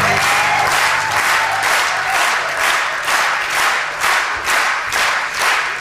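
Studio audience applauding, the claps falling into a steady beat of about three a second. Under it, an acoustic guitar chord rings out and fades over the first few seconds.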